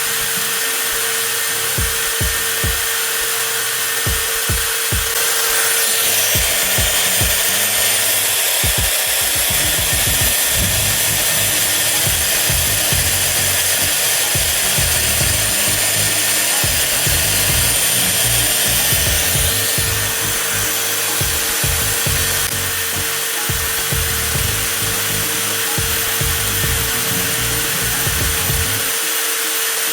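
TOTAL 20V cordless angle grinder running continuously at constant speed, a steady motor whine with a fixed high tone and no change in pitch.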